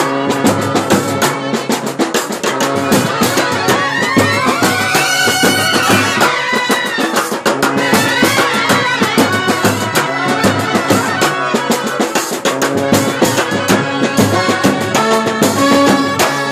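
Kerala brass band playing: trumpets, clarinets and saxophones carry the tune over a busy, steady beat of side drums and cymbal.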